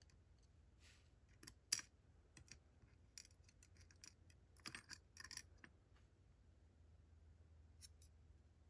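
Faint, scattered light clicks and ticks of small metal lock parts being handled: the discs of a disassembled disc-detainer padlock, in a few quick clusters with one more near the end.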